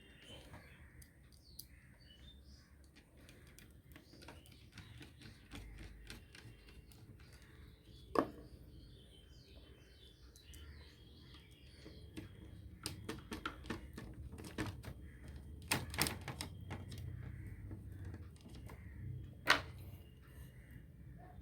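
Irregular clicks and sharp knocks of hands and tools working on a plastic mini tower speaker cabinet as it is screwed back together, with a few louder knocks about 8, 16 and 19 seconds in.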